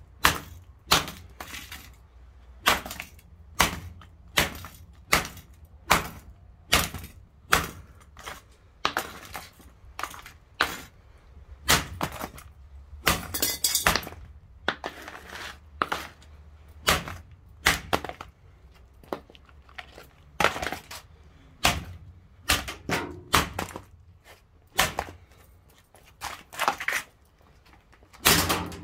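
An XU1 jigsaw's blue plastic housing being smashed against paving slabs by repeated blows, about one a second, each a sharp crack and clatter as the casing breaks apart.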